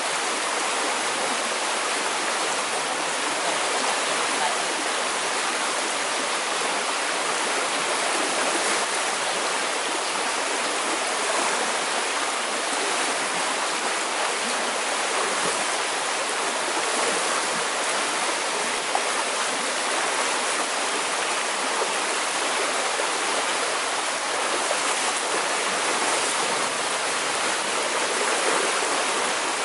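Fast-flowing river rushing through rapids, a steady, unbroken roar of water.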